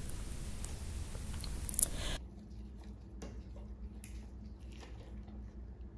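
Soft scattered clicks and rustling as copper wires and a plastic wire nut are handled and twisted together by gloved hands.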